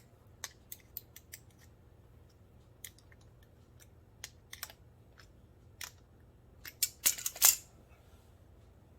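Pliers clicking and scraping against a metal screw eye as it is twisted in, in scattered sharp clicks, with a louder run of clatter about seven seconds in.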